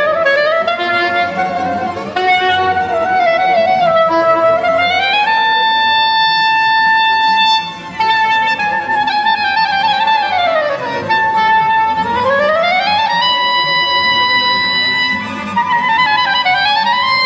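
Soprano saxophone with string orchestra in a contemporary concerto. The music moves in long held notes joined by slow slides down and back up in pitch, over a busy string background.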